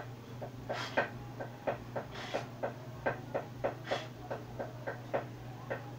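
Light, irregular clicking and tapping, about three or four a second, over a steady low hum.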